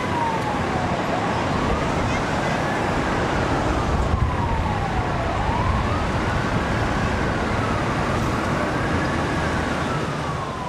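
Emergency-vehicle siren wailing, its pitch sliding slowly up and down in sweeps a couple of seconds long, over a steady traffic rumble; it fades out near the end.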